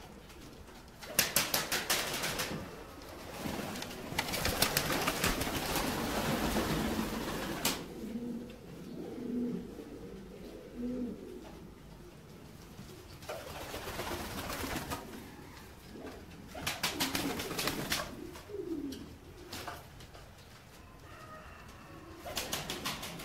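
Pomeranian pouter pigeons cooing with low, humming coos, broken by several bursts of wing flapping.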